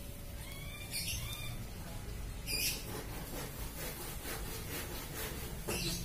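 Cat giving a few short, high, rising-and-falling meows about a second in, which the uploader takes for a cat in heat calling a male.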